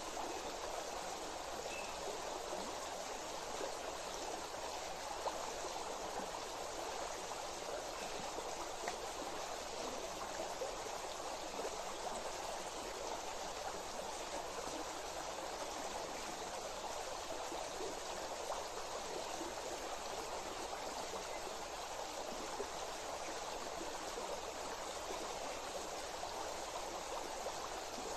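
Steady rushing of flowing stream water, an even hiss with no pauses.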